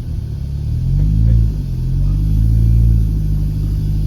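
Honda Jazz hatchback's engine revving up and down in a low rumble, its pitch climbing about a second in, dropping back, then climbing again, as the car is eased over a rough, rocky track.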